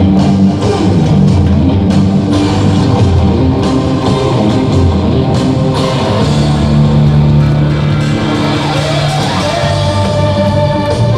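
Loud instrumental band music, with sustained notes over a drum beat, starting abruptly just before and playing throughout as the opening of a song.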